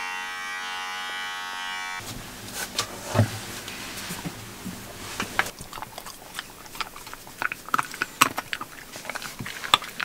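Electric pet clippers buzzing steadily, stopping about two seconds in. Then a small dog chewing a treat, with irregular clicks and smacks of its jaws.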